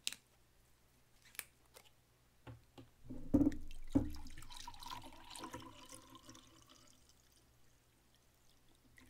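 Makgeolli poured from a plastic bottle into a glass beer mug: a few light clicks and taps of the bottle being handled, then from about three seconds in a splashing pour into the glass that trails off over several seconds.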